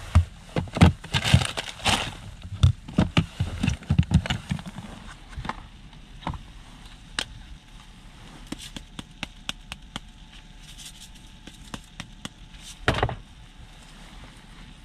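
Handling noise from a plastic box lid and the things inside it: a quick run of clicks, knocks and rattles over the first few seconds, then scattered clicks, with one louder thump near the end. A faint steady hiss runs underneath.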